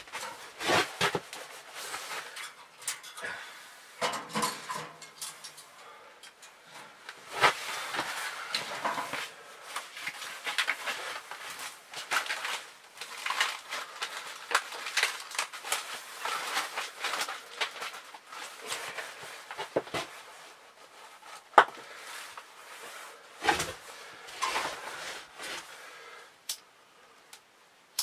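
Dry birch bark and kindling being handled and shredded at a wood stove: irregular rustling and crackling with the knock and clatter of sticks, and a few sharp clicks near the end.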